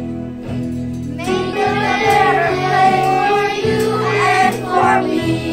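Children singing a song over instrumental accompaniment, the voices coming in about a second in.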